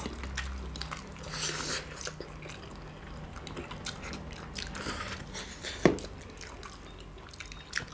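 Two people eating spicy black bean noodles close to the microphone: wet slurping of noodles in short bursts, with chewing between them and a sharp click about six seconds in.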